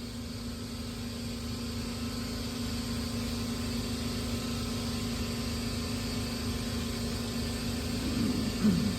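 Steady low mechanical hum over a noisy background, slowly getting a little louder. Near the end a short sound falls in pitch and ends in a brief knock.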